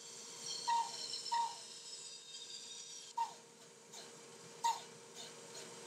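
Bandsaw running with a steady hum while its blade cuts a curve through 3/4 inch MDF. Five short, falling chirps at uneven intervals stand out above it as the loudest sounds.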